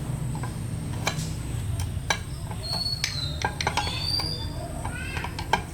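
Scattered sharp clicks and clinks over a low steady hum, with a few short high chirps between them.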